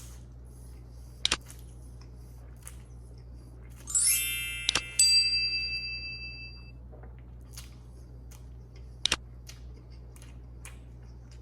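A bright shimmering chime sweeps in about four seconds in and rings out over a couple of seconds. A few sharp clicks sound around it.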